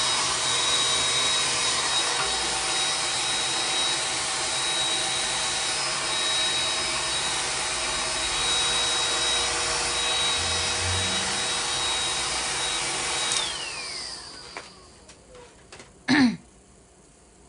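Hair dryer running with a steady blowing rush and a high motor whine. It is switched off about thirteen seconds in, and the whine falls away as the motor spins down. A brief, sharp sound comes near the end.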